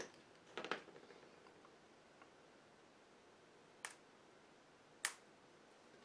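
A handful of short, sharp clicks and taps, a second or more apart, from wooden toothpicks being cut with a hobby knife and the knife and cut pieces set down on a plastic cutting mat. Otherwise near silence.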